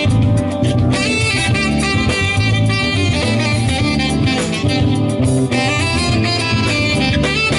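Live smooth-jazz band playing an instrumental passage, with saxophone over electric guitar, bass, keys and drums.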